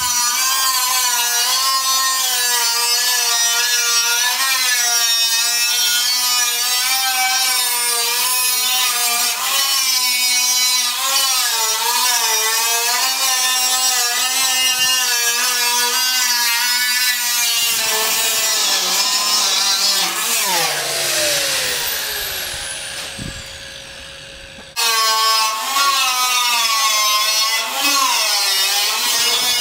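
Angle grinder cutting through the steel wall of a 55-gallon drum: a loud, high whine that wavers in pitch as the wheel bites into the metal. After about 18 seconds it winds down with a falling pitch, then it is running and cutting again near the end.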